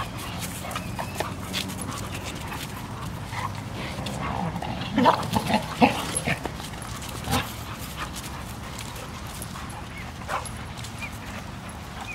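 Several dogs play-wrestling, with short dog vocalisations and scuffling; the loudest cluster of sounds comes about five to six seconds in, with another brief one shortly after.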